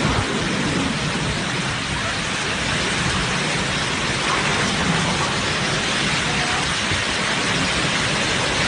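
Heavy rain pouring down steadily, a dense even hiss with a low rumble beneath it.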